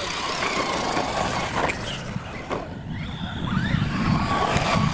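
Radio-controlled trophy trucks racing on dirt: their motors whine, rising and falling in pitch with the throttle, over a low rumble that grows louder near the end.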